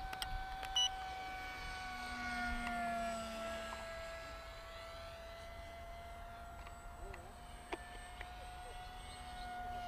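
OMPHobby T720's small electric motor and propeller whining in flight, a steady tone that wavers slightly in pitch, over low wind rumble on the microphone and a few faint clicks.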